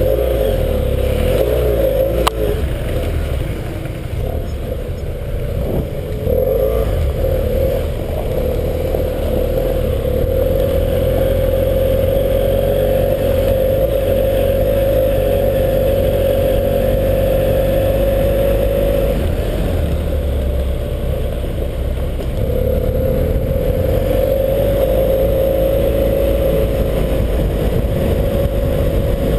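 BMW 798 cc parallel-twin adventure motorcycle engine running under way on a gravel track, recorded from the rider's helmet with wind rumble. The engine note drops back twice, a few seconds in and again past the middle, as the throttle eases, then picks up again.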